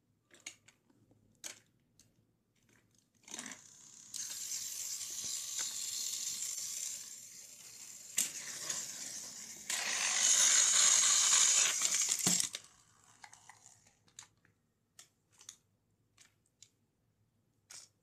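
Battery-powered toy train engines running on plastic track: a whirring rattle of small motors and gears. It starts about three seconds in, gets louder about ten seconds in as the trains pass close, and cuts off suddenly about twelve seconds in. Scattered light clicks come before and after.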